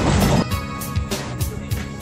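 Background music with a steady beat, about four strokes a second. A rumbling noise underneath cuts off about half a second in.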